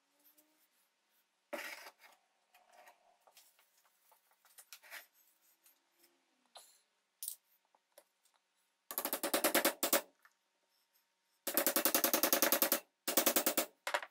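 Cast-iron vise and its gear-driven drill attachment being worked by hand: light clicks and metal sliding at first, then three bursts of rapid, even metallic rattling in the second half, the loudest sounds here.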